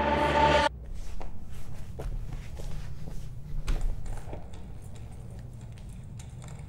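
Electronic dance-pop music cuts off abruptly under a second in. What follows is quiet room ambience with a low hum and scattered light clicks and knocks, like footsteps.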